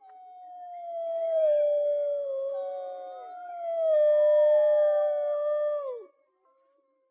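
Several canines howling together: two long howls that each slide slowly down in pitch, with other voices overlapping above them, ending abruptly about six seconds in.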